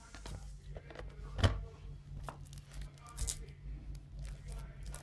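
Cardboard phone packaging and a plastic-wrapped phone being handled: small taps and rustles, with a sharp knock about one and a half seconds in and a short rustle about three seconds in.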